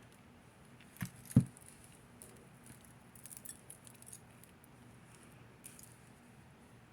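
Small hard objects handled on a tabletop: two knocks about a second in, the second louder, then scattered light clicks and clinks.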